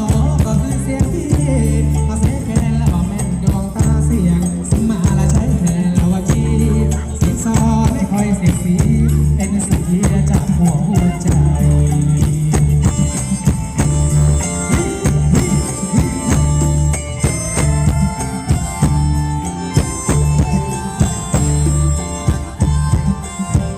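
Live band playing Thai ramwong dance music, with a steady heavy bass beat and shaker-like percussion. From about halfway, sustained reedy chords join in.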